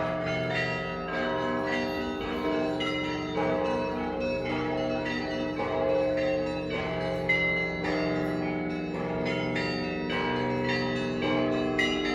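Russian church bells, a set of 17 rung by one bell-ringer with ropes and a foot pedal, in a continuous peal. Small bells strike several times a second over the long, steady hum of the larger bells.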